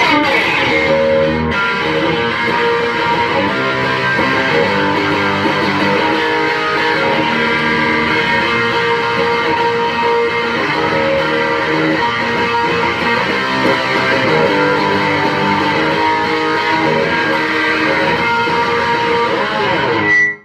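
Electric guitar playing sustained chords and notes at a steady loudness, cutting off abruptly near the end.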